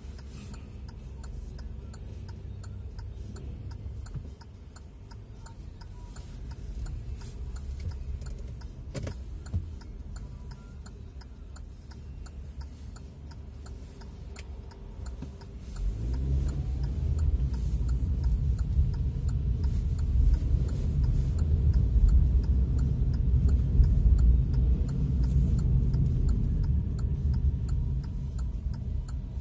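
Car driving: low road and engine rumble with a steady ticking over it. About halfway through the engine note rises and the rumble grows much louder as the car accelerates.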